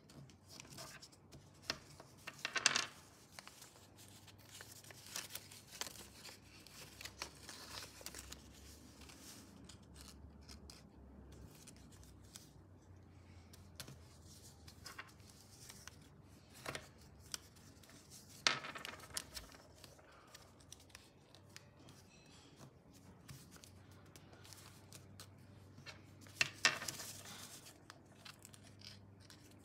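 A sheet of paper being folded and creased by hand: soft rustling and rubbing, broken by a few short, sharp crinkles as the folds are pressed flat.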